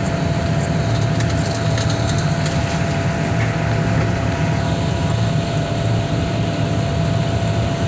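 Heavy machinery engine running steadily with a constant whine, and faint cracks and snaps of wood under it.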